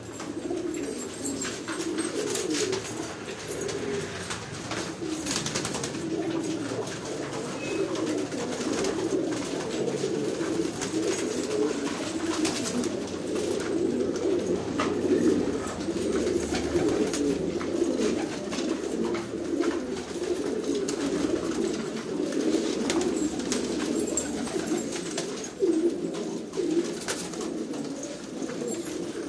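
Many domestic pigeons cooing at once, a low, continuous overlapping burble.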